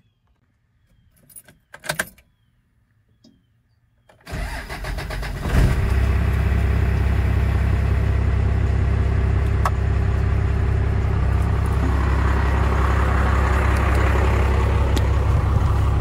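12-valve Cummins inline-six diesel with its clutch safety switch spliced out, starting: after about four seconds of near silence the starter cranks it over briefly, it catches about a second later and settles into a steady idle.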